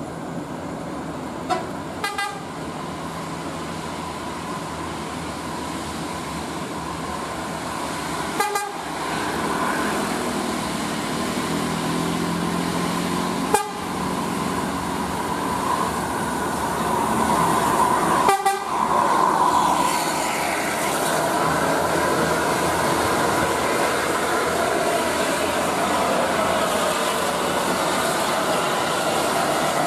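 Heavy coach bus engine labouring up a steep grade with the horn sounding.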